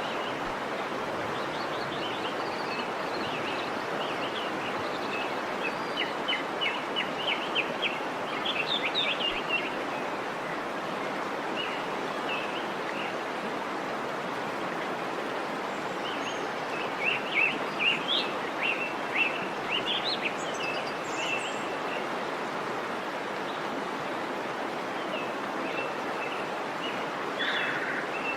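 Waterfall running with a steady rush of water, and birds chirping over it in two busy spells of quick, repeated chirps and a few scattered calls.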